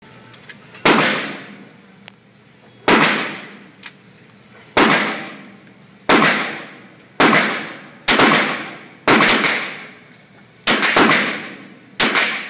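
Ruger .22LR firing about eleven single shots at an uneven pace, mostly one to two seconds apart with a few quicker pairs. Each sharp crack has a long echoing tail.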